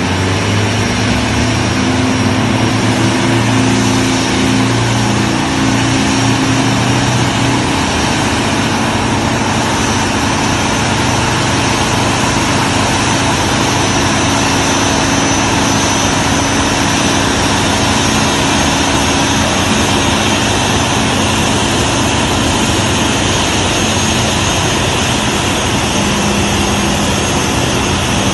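Jet aircraft engines running steadily on the ground after landing, a continuous rush with a faint high whine over low engine tones.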